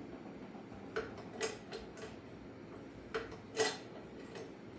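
Hydraulic bottle jack being pumped by hand under load, spreading a bent steel minibike frame straight: sharp metallic clicks from the pump handle come in two pairs, about a second in and again past the middle, and the second pair is louder.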